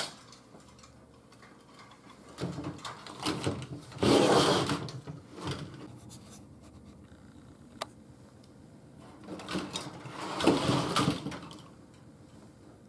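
Chicken wire and a wooden shelf frame being shifted and scraped on a tabletop, in several bursts of rustling and scraping. The loudest comes about four seconds in and another near the end, with a single sharp click about eight seconds in.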